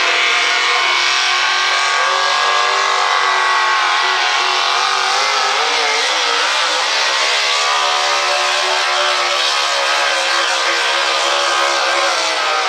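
Modified pulling truck's supercharged engine running flat out under load as it drags the sled. Its pitch climbs over the first few seconds, wavers up and down around the middle, then holds high.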